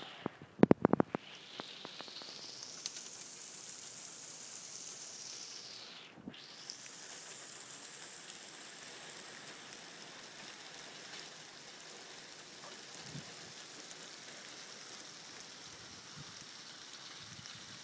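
Heavy driving rain falling steadily. A quick run of sharp knocks comes about a second in and is the loudest sound, with a few fainter ticks later.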